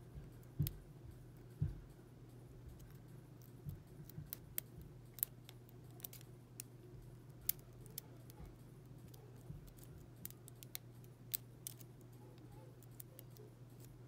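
Small, irregular metallic clicks and ticks of a steel lock pick working the pin tumblers of a brass padlock, over a steady low hum.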